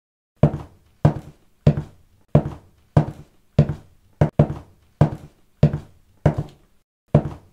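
A steady series of about a dozen dull thuds, roughly one every two-thirds of a second, each dying away quickly.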